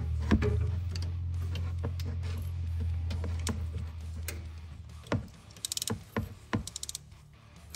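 Socket ratchet on an extension clicking as it works the crank position sensor's bolt, with scattered sharp knocks of the tool on metal; quick runs of ratchet clicks come in the second half. A steady low hum runs under the first five seconds and then stops.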